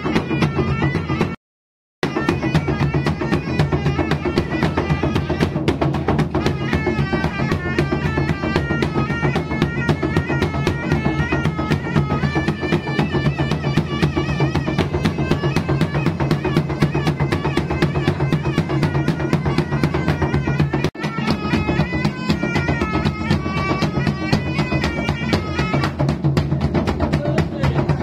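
Traditional South Sulawesi gendang ensemble: two-headed barrel drums beaten in a fast, dense rhythm with stick and hand, with a hanging gong and a pui-pui shawm playing a wavering, reedy melody over them. The sound drops out briefly about a second and a half in.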